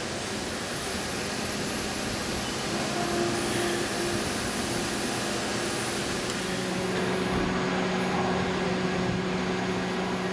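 Haas VM3 CNC vertical machining center running, cutting a mold plate under flood coolant: a steady whir of spindle and machine with the hiss of coolant spray. A steady low hum grows stronger about two-thirds of the way through.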